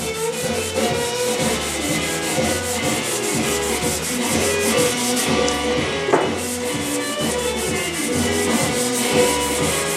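Hand block-sanding a car body panel with 500-grit sandpaper: a steady, rhythmic rasp of paper stroking back and forth over the primer or filler.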